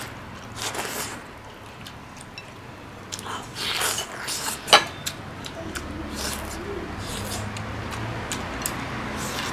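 Two people eating from porcelain bowls with chopsticks: short, intermittent slurps and sucking at soup and rice. There is a sharp tap of chopsticks against a bowl a little under five seconds in.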